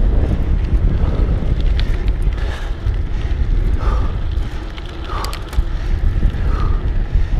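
Wind buffeting the microphone of a camera riding on a moving bicycle, over the hiss of tyres on asphalt. A faint short chirp recurs about every second and a half from a little past halfway.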